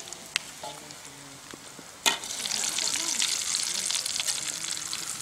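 Food frying in a wok of hot oil: a sharp clack about two seconds in, then a loud, steady sizzle with dense crackling.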